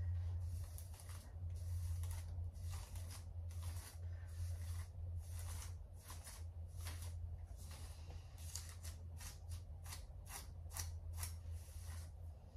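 Unbrush detangling brush stroking through long hair: a run of short bristle swishes, about one a second at first and quicker near the end. The brush goes through without catching. A low, steady hum lies underneath.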